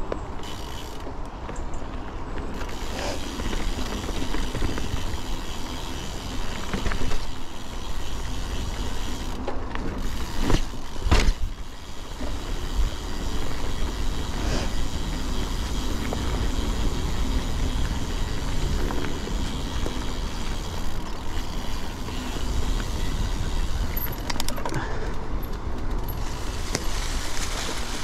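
Wind rushing over an action camera's microphone while riding a mountain bike, with the bike rattling over rough ground. Two sharp knocks come about ten and eleven seconds in.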